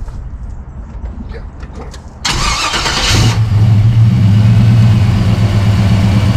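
Car engine cranked by the starter for about a second, catching and settling into a loud, steady idle. The starter voltage holds up well during the crank.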